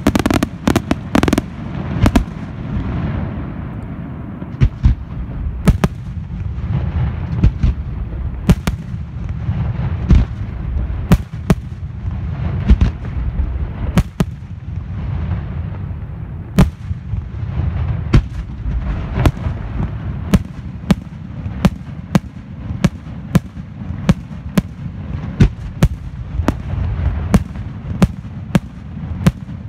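Aerial firework shells bursting in a display: a rapid volley of bangs at the start, then sharp reports over a continuous low rumble. Near the end the bangs come in a fairly regular run, about one or two a second.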